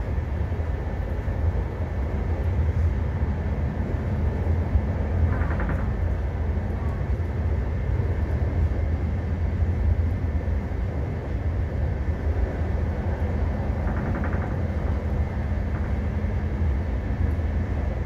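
Steady low rumble of a passenger train running along the track, heard from inside the carriage.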